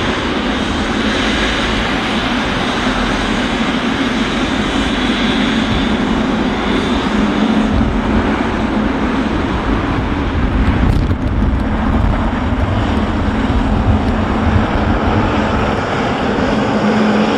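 Boeing 777 freighter's GE90 jet engines running, a loud, steady jet noise with a steady low hum underneath.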